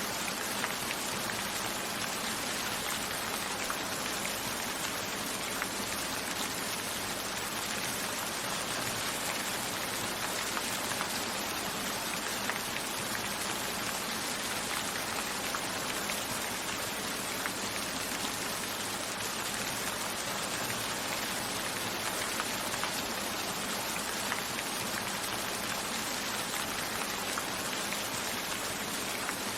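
Steady rainfall, an even hiss of rain with scattered drops ticking on a surface.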